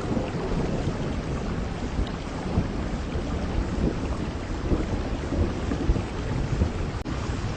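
Heavy rain falling steadily with wind, under a constant low rumble.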